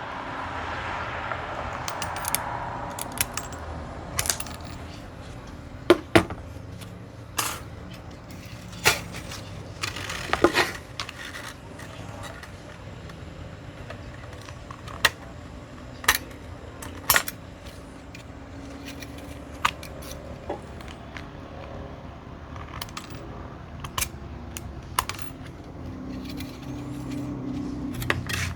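Long shears snipping thin 0.15 mm nickel strip, about a dozen sharp metallic clicks at irregular intervals, mixed with the light clink of small metal pieces being handled.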